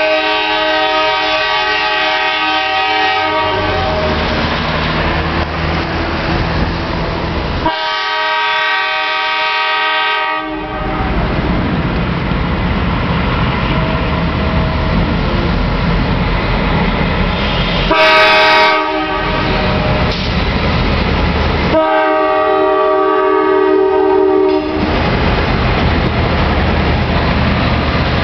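Norfolk Southern diesel locomotive horn sounding the grade-crossing signal: two long blasts, one short, then a final long blast. A steady low diesel rumble underlies it, and the passenger cars roll past near the end.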